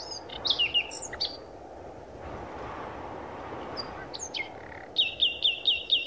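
Birds singing: short downward-slurred whistles near the start and again past the middle, then a quick run of about six repeated falling notes near the end, over a steady low background rush.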